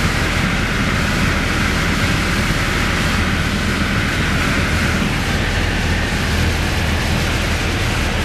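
Piper PA-28 light aircraft's piston engine and propeller running steadily at constant power, heard from inside the cockpit, with a low drone under a broad rushing hiss.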